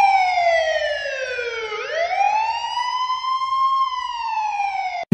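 Siren wailing in one slow sweep: the pitch falls, climbs back up about two seconds in, then falls again, and the sound cuts off abruptly just before the end.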